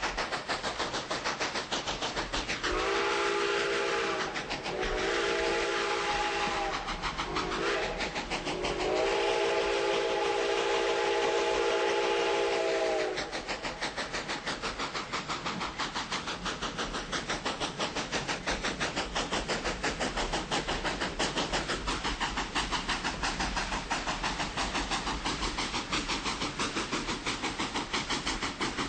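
A passing train's steady rail noise, with a fast, even clatter of wheels on rails. About three seconds in, the train horn sounds a chord in the grade-crossing pattern of long, long, short, long, the last blast the longest, then stops and the rolling noise carries on.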